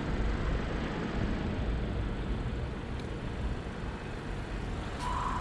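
Steady street and traffic ambience: a low rumble with a hiss over it. A brief high tone comes in near the end.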